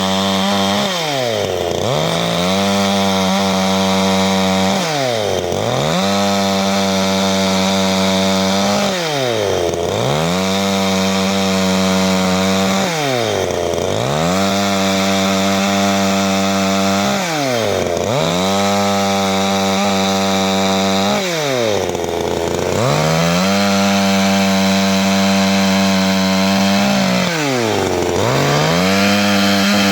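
CanFly 54.6 cc two-stroke chainsaw running at high revs, its engine speed dipping sharply and recovering about every four seconds, seven times in all.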